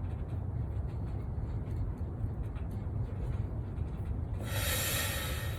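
Single-burner propane forge burner running with a steady low rumble, just after lighting. About four and a half seconds in, a loud hiss lasts about a second.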